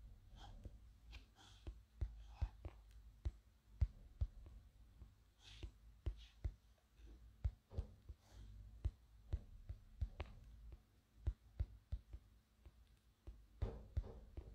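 Faint, irregular soft taps and knocks, about one or two a second, from handling things at a desk, with a few faint breathy whispers between them.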